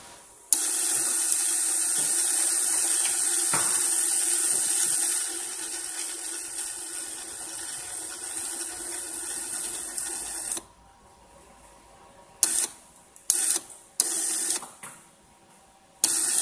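Belimo SY4U230 large-torque electric actuator's geared motor running steadily for about ten seconds, driving its output shaft round to the open position, then stopping. A few brief bursts of the same running sound follow near the end.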